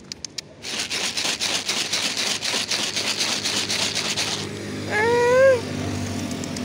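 Dry cat food shaken in its bag, a fast rattling rustle lasting about four seconds after a few quick clicks, to lure a cat out. About five seconds in comes one short, meow-like call that rises then falls.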